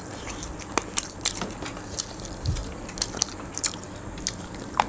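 Close-miked eating of rice and chicken curry by hand: chewing and biting mouth sounds, heard as sharp clicks at an irregular pace, a few every second.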